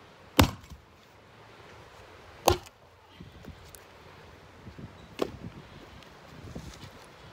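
Two sharp axe blows into an old weathered wooden beam, about two seconds apart, chopping off its end. After them come a lighter knock and the rustle and clatter of wood pieces being picked up off grassy ground.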